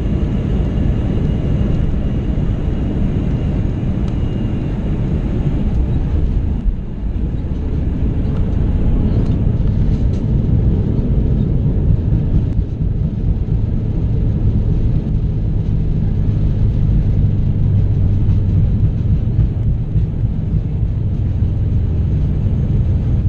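Steady rumble of an Airbus A321's engines and rushing air, heard from inside the cabin as the plane comes down the runway to land. A low drone builds up about halfway through.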